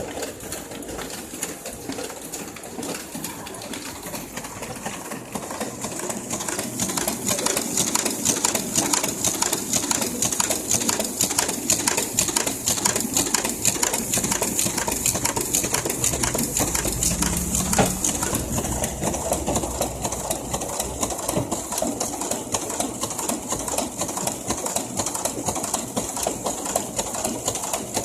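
Photocopy machine running, a rapid continuous mechanical clatter that gets louder about six seconds in.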